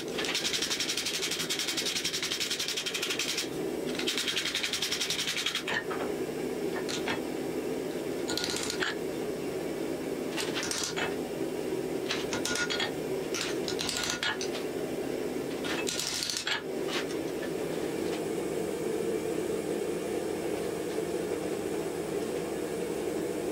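Hand hammer striking hot wrought iron on a steel anvil while an axe head is forged. It opens with a fast run of light blows, then gives separate single strikes until they stop a few seconds past the middle. A gas forge's burner hums steadily underneath.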